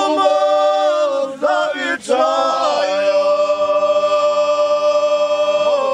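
Men singing, with a few short bending phrases and then one long held note.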